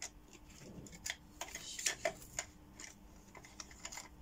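Light, irregular clicks and taps from paintbrushes being handled, about a dozen scattered through.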